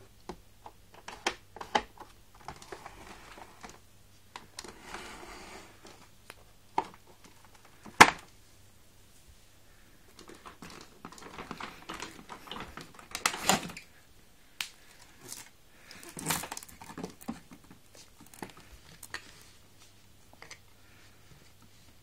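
Plastic parts of a Hoover Turbopower 2 cylinder vacuum cleaner being handled with the motor off: irregular clicks, knocks and rattles as accessory tools are unclipped from their storage and fitted, with a few short rustling bouts. The sharpest click comes about eight seconds in, over a faint steady low hum.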